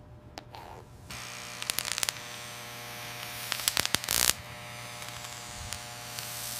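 A small electric motor starts buzzing steadily about a second in, with a few clicks and a short louder burst a little before the middle.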